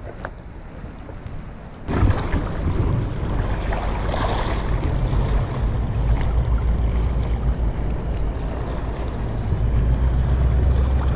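Low rumbling noise aboard a fishing boat, mostly wind buffeting the microphone, starting suddenly about two seconds in and staying loud and steady.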